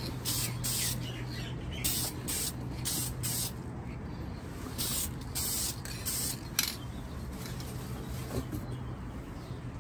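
Aerosol spray-paint can spraying in about ten short bursts of hiss, mostly in the first seven seconds, as red coats go onto steel upper control arms.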